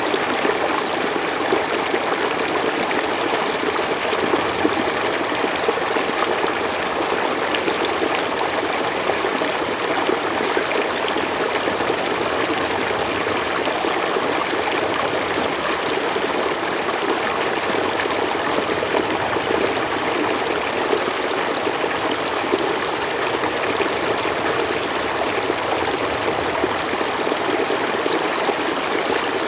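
A stream flowing steadily, water running and trickling over rocks.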